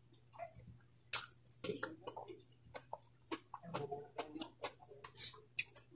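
Close-up eating sounds: chewing and lip smacks with many short, sharp mouth clicks, the sharpest about a second in, and fingers picking at food on a wooden board.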